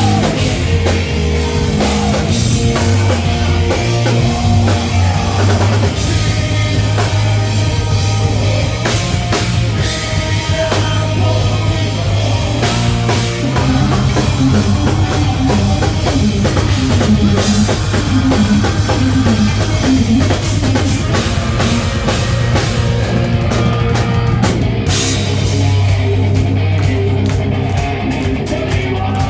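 Live rock band playing loudly: drum kit, electric guitars and bass.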